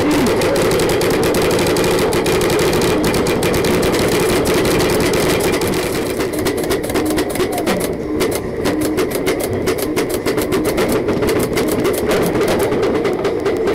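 Paintball markers firing in rapid strings, many sharp pops a second, the fire growing denser about halfway through.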